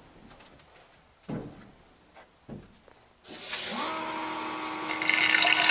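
Furnace condensate pump switching on about three seconds in: a steady motor hum, joined near the end by louder rushing as it pumps water out while being primed and tested. Before it, a couple of light knocks from handling the unit.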